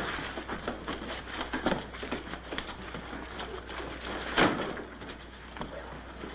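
A run of scuffles and knocks, with one louder thump about four and a half seconds in.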